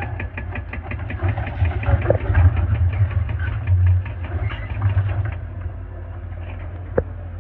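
Excavator's diesel engine running with a strong low hum and a rapid, even clatter of about six strokes a second that fades after about five seconds. One sharp knock comes near the end.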